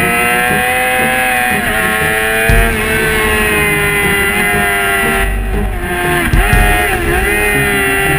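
Race motorcycle engine heard from an onboard camera, held at high revs through fast corners: a steady high note that sags slowly, with a few brief dips. Wind buffets the microphone in gusts, most heavily a little after halfway.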